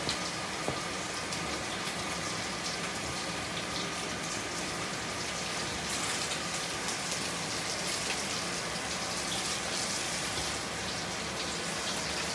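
Bone-in steak searing in a hot skillet: a steady sizzle with fine crackles of fat.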